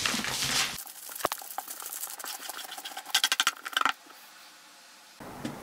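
Tarot cards sliding and rustling against one another and the tabletop as a spread deck is swished around, then gathered and shuffled, with a quick run of flicking card clicks about three seconds in.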